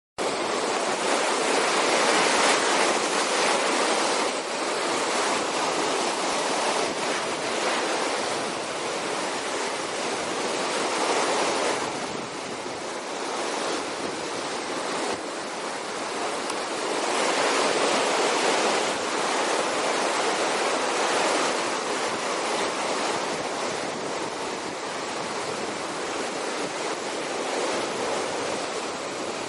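Small surf waves breaking and washing up a sandy beach: a continuous rush that swells and eases every few seconds.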